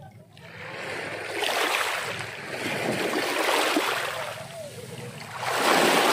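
Small sea waves breaking and washing up the shore, the noise swelling and fading about every two seconds.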